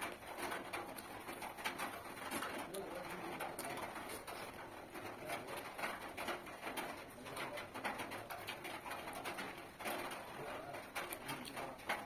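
Close-up eating sounds: wet mouth clicks and chewing as rice and curry are eaten by hand, with a bird calling in the background.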